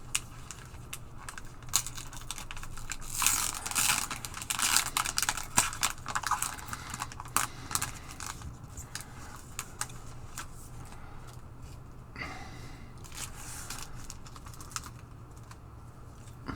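Hockey card pack wrapper being torn open and crinkled, then the cards being handled, with crackling rustles and small clicks in spells, busiest from about three to eight seconds in. A steady low hum runs underneath.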